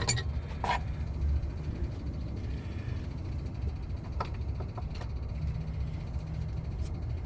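A few light clicks and taps as the old headlight bulb is worked loose and handled, over a steady low rumble.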